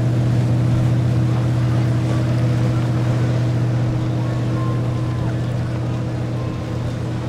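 Engines of a passing express cruiser yacht running with a steady low drone under the hiss of its wake, easing off slightly near the end.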